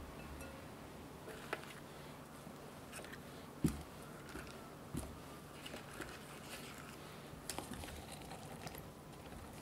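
Soft, scattered taps and knocks of fresh strawberries being picked up by hand and set into a glass bowl, with one louder thump a little over three and a half seconds in.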